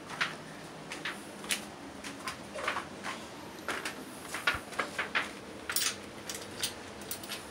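Plastic sheeting over a milling machine's table being handled: about a dozen short, irregular crinkles and light clicks.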